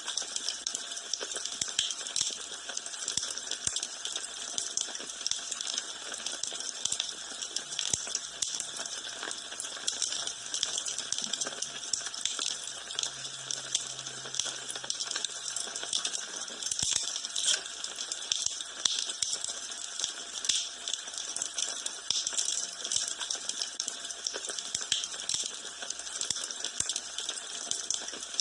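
Wood fire in a fireplace crackling steadily, with many small pops and snaps over a soft hiss.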